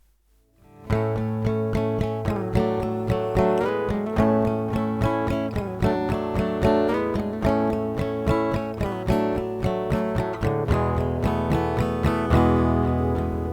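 Upbeat, cheery instrumental tune on acoustic guitar, strummed in a steady rhythm, coming in just under a second in.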